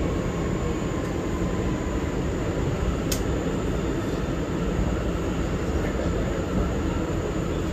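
New York City Subway C train car running through the tunnel, heard from inside the car: a steady rumble of wheels on rails with a faint steady whine, and one sharp click about three seconds in.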